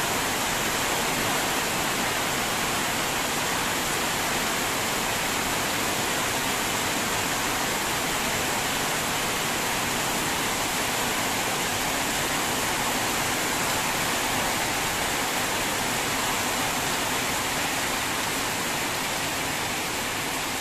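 Heavy tropical rain pouring steadily, an unbroken hiss of a downpour.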